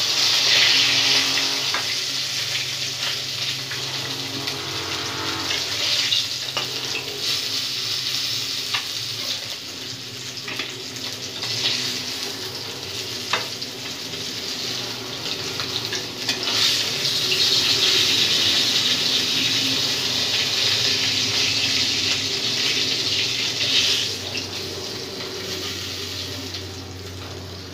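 Turmeric-rubbed fish pieces sizzling in hot oil in a steel kadai, a steady hiss that swells twice and eases off near the end. A few sharp clicks of a spatula against the pan.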